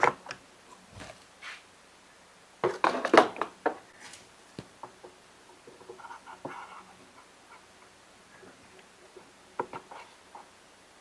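Scattered clicks, clatter and rubbing of hand work on a Stihl BG85 blower as it is taken apart to get at the fuel lines and carburetor. The loudest burst of clatter comes about three seconds in, with a few lighter clicks near the end.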